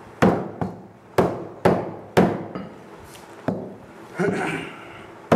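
Heavy butcher's cleaver chopping goat meat on a wooden chopping block: about five sharp chops at uneven intervals, followed by a brief rougher noise about four seconds in.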